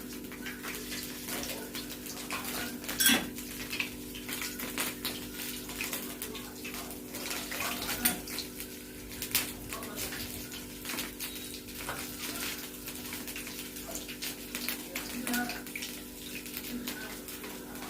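Zalabia batter deep-frying in hot oil: a steady crackling sizzle, with clinks of a teaspoon on a dish, the loudest about three seconds in and another about eight seconds in. A steady hum runs underneath.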